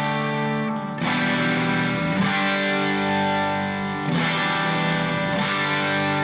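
Background music: distorted electric guitar with effects, sustained chords changing every second or so.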